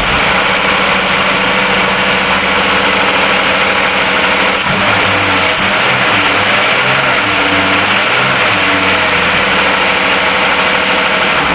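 2012 Jeep Grand Cherokee's 3.6-litre V6 running steadily just after starting, with its fuel pump powered through a jumper wire across the fuel pump relay socket. The engine running this way points to the fuel pump relay as the cause of the crank-no-start.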